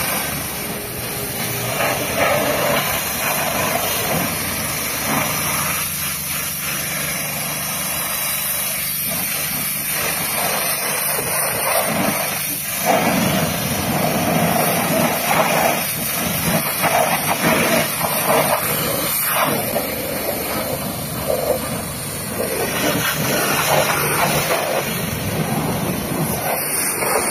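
Pressure washer running steadily, its high-pressure water jet hissing against a pickup truck's wheels and bodywork, the hiss swelling and fading as the wand moves.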